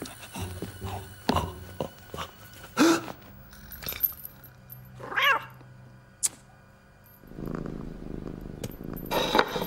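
A cartoon cat's voiced sounds: a short meow-like cry about five seconds in, then a steady purr from about seven seconds on. Light tapping sound effects come in the first few seconds.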